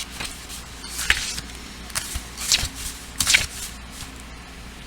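Tarot and oracle cards being handled: a handful of short papery rustles and slides, a few spread over the first three and a half seconds.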